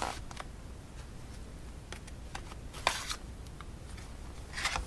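Boxed playing card decks being handled: a few light taps and clicks of the cardboard tuck boxes, one louder tap with a short rustle about three seconds in, and a brief rustle near the end.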